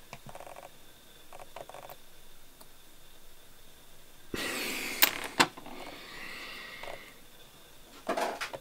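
Faint handling sounds of fine tweezer work on a wristwatch movement: a few small clicks, then a short rush of noise with two sharp clicks about five seconds in, and another brief rustle near the end.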